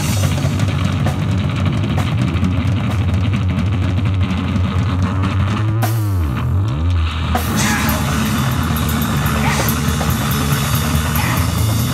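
Live rock band, electric guitar and drum kit, playing loudly. About six seconds in, the low notes swoop down in pitch and back up while the cymbals drop out briefly, then the full band comes back in.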